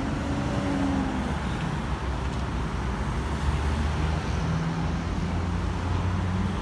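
Steady low engine hum and road traffic noise, with no sharp events.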